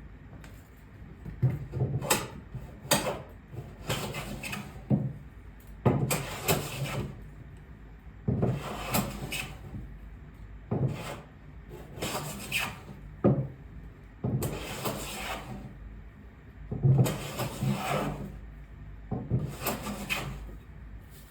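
A freshly restored Stanley Bailey No. 7 jointer hand plane taking repeated shaving strokes along a wooden board. Each pass is a short scraping swish, coming every second or two.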